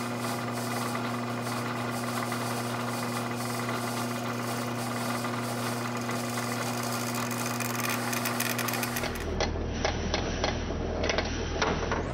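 Milling machine spindle running with a steady hum, turning a Starrett 827B edge finder. About nine seconds in, the sound turns to a rougher rumble with a run of sharp clicks and rattles as the edge finder is pushed the wrong way, its internal spring breaks and the tip flies off.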